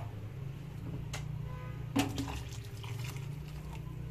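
Thin amti curry bubbling in a kadhai as it comes to the boil, over a steady low hum, with a couple of light clicks about one and two seconds in.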